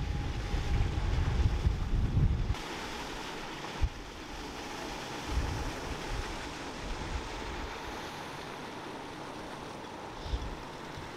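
Wind rumbling on the microphone for the first couple of seconds, then a steady rush of splashing water from a small fountain jet in a pond.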